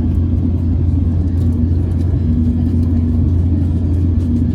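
Steady low rumble of a jet airliner's engines and air systems, heard inside the passenger cabin, with a fainter hum that comes and goes.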